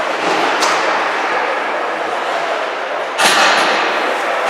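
Ice hockey game in an indoor rink: steady arena hubbub, with one sharp bang about three seconds in that rings out briefly in the hall.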